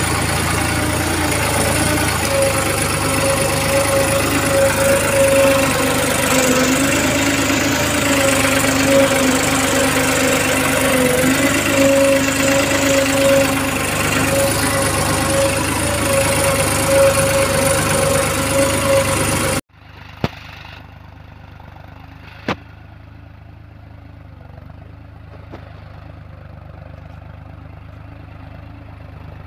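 Diesel tractor engine running steadily while pulling a cultivator through a cotton field, loud and close as heard from the driver's seat. About twenty seconds in the sound cuts abruptly to the same tractor much quieter and far off, with two sharp clicks.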